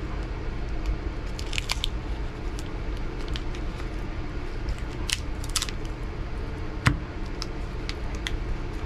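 A priority mail package being opened and handled by hand: crinkling and rustling of the mailer with scattered clicks, and one sharper knock about seven seconds in, over a steady low hum.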